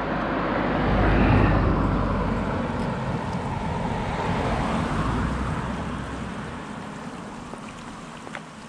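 Wind and road noise buffeting a cyclist's chest-mounted camera microphone while riding. The rumble swells about a second in and then fades away slowly.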